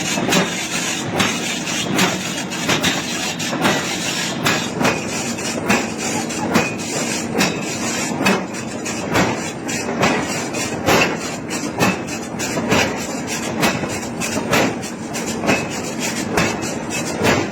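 Forging hammer striking iron repeatedly, heavy blows about once a second with lighter knocks between, over a steady din of shop machinery.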